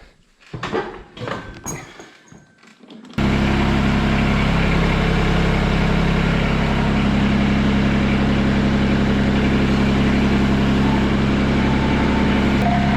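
LS MT225s compact tractor's three-cylinder diesel engine running steadily. It comes in suddenly about three seconds in, after a few light knocks and clicks.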